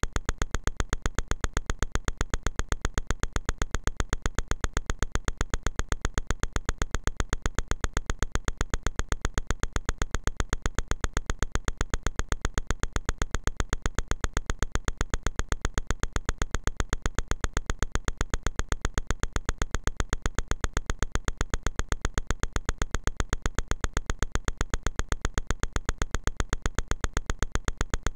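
Rapid, perfectly even clicking, many clicks a second, holding steady without change.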